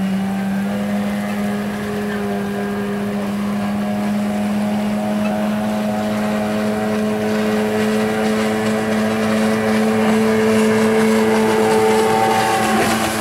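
Jet ski engine running at speed: a steady, loud drone that grows a little louder and slightly higher in pitch toward the end.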